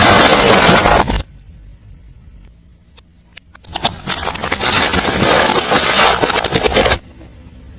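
A car tyre rolling over and crushing crunchy objects: dense crackling and crunching. One spell stops about a second in, and a second one runs from about three and a half seconds to seven.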